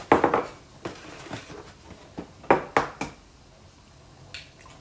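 Eggs being cracked against the rim of a glass mixing bowl: a quick run of sharp taps right at the start, two or three more sharp taps in the middle, and one lighter click near the end.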